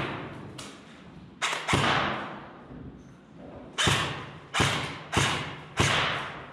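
Airsoft replica firing single shots, six sharp cracks at irregular gaps of about half a second to two seconds, each echoing in a concrete stairwell.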